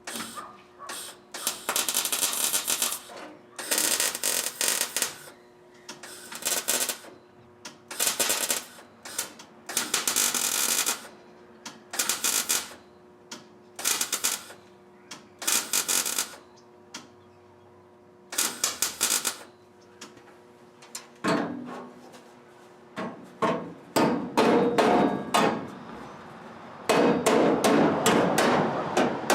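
MIG welder laying short stitch welds on thin, rusty sheet steel: a series of crackling bursts, each about half a second to a second long, with pauses between them. Near the end the sound becomes denser and more continuous.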